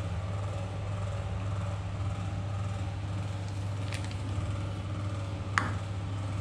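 A steady low hum of kitchen background noise, with a light click about four seconds in and a sharper click about a second and a half later as a steel bowl and utensils are handled.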